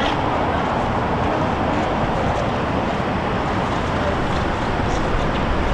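Steady, even vehicle rumble with no clear tone or rhythm.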